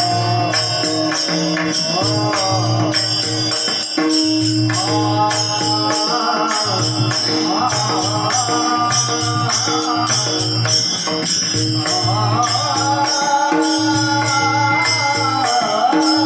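Marathi devotional bhajan music: a gliding melody line over a steady held drone, with a fast, even percussion beat and pulsing low drum notes.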